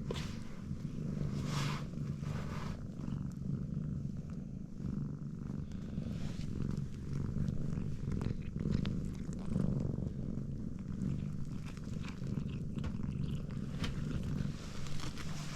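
Domestic cat purring steadily, a continuous low rumble that rises and falls slightly in level.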